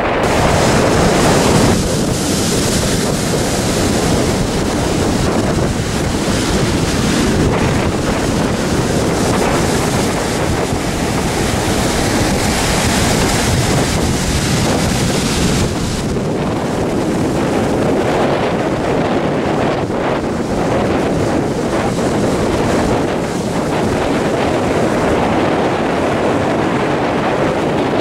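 Storm surf breaking and rushing up a sand beach, with strong wind buffeting the microphone; a loud, steady rumble.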